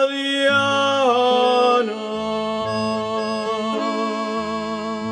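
Closing bars of a havanera sung by a male vocal group: the voices hold the final note, slide down about a second in, and stop near two seconds in. Accordion chords with a bass line carry on, slowly getting softer.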